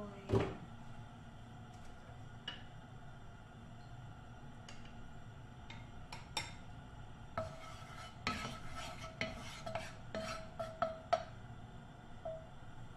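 Cookware and utensils clinking and knocking against a frying pan, a few scattered clicks at first and a busier stretch of clatter and scraping from a little past halfway. Near the end a wooden spatula is stirring oil heating in the pan.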